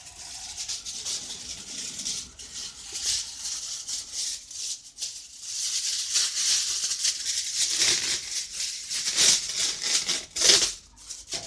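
Aluminium foil crinkling and rustling as a sheet is pulled from its box and handled, with louder crackles near the end.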